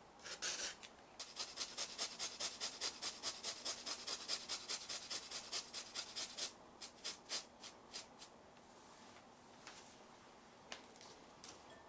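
Peeled sweet potato being grated on a fine rasp grater, quick scratchy strokes about five a second that slow to a few scattered strokes and stop after about eight seconds.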